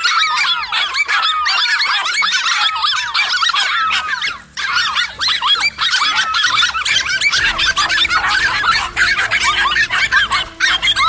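A pack of dogs barking and yelping over one another in a dense chorus of high-pitched yaps, with one brief break about halfway through.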